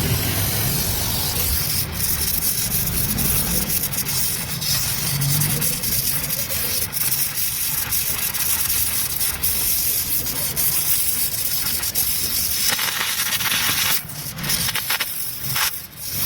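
Gas welding torch flame hissing steadily on aluminium work, broken by short gaps near the end.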